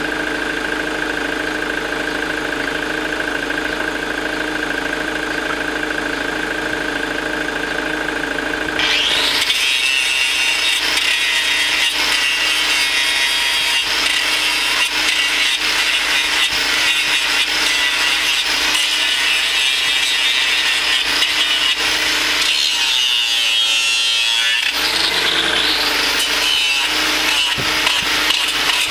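A steady mechanical hum, like an engine or hydraulic pump running, for about the first nine seconds. Then a power hoof-trimming grinder (angle grinder with a trimming disc) starts cutting into the cow's hoof horn, louder, with a high hissing grind that runs on, its tone shifting briefly about three quarters of the way through.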